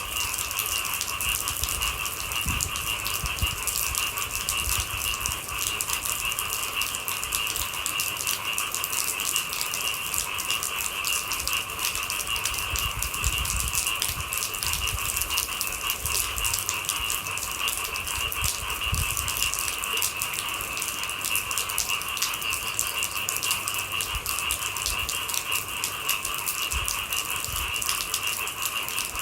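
Steady night-time chorus of calling animals, a dense rattling trill in two bands of pitch that runs without a break, over a fine crackle of rain and a few soft low thumps.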